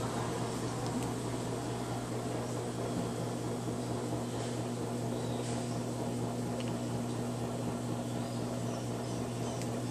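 Electrolux LT15F washing machine running with a steady motor hum and a few faint ticks.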